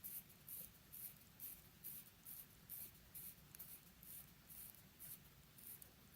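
Faint, regular ratcheting of a Yema Heritage watch's crown being wound by hand, about two winding strokes a second.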